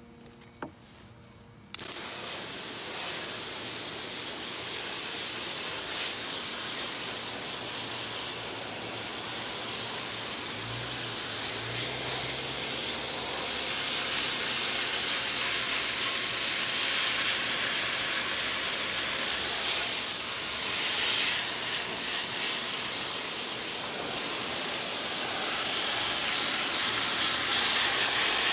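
A hose spray wand hissing as it jets water into the fins of a Polaris RZR radiator, rinsing out coil cleaner and mud. The spray starts suddenly about a second and a half in and runs steadily, getting somewhat louder later on.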